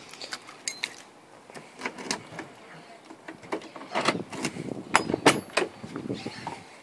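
A string of clicks and knocks from handling a car door on a 1993 Volvo 940 station wagon as it is opened to get at the interior. The loudest cluster of knocks comes about four to five and a half seconds in.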